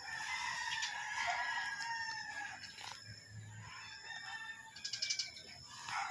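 A long crowing call from a fowl lasting about two seconds, with another call starting near the end.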